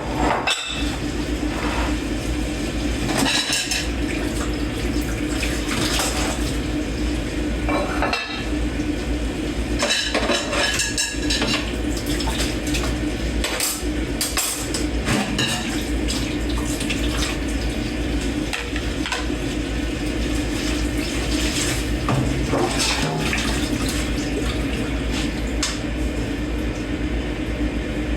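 Dishes being hand-washed in a kitchen sink: running water from the tap, with frequent clinks and clatters of plates and cutlery knocking together.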